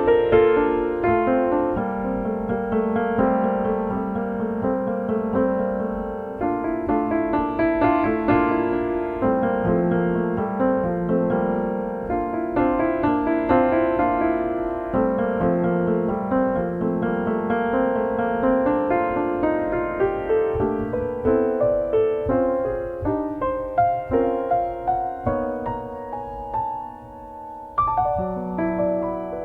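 Solo piano playing a slow piece of sustained notes and chords, growing softer near the end before a fresh chord is struck.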